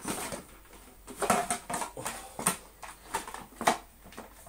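Irregular clicks and knocks from the Electrolux Slimline 185 vacuum cleaner's cord rewind reel and housing parts being handled and turned, about half a dozen sharp strokes spread over a few seconds.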